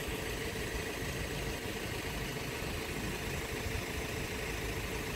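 A steady machine hum, with a faint steady tone running through it.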